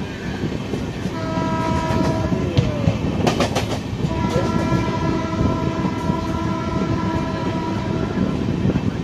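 Indian Railways passenger train heard from an open coach door while running: the locomotive's horn sounds a blast of about a second and a half, then a long held blast from about four seconds in, over the steady rumble of the coaches. Between the blasts comes a quick run of wheel clicks over rail joints.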